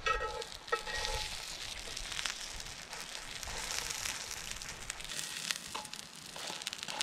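Chicken schnitzel sizzling in hot oil in a cast-iron frying pan, a steady frying hiss.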